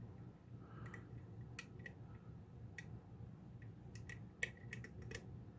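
Faint, scattered metallic clicks of a lock pick probing the pins of a five-pin pin-tumbler lock, over a steady low hum.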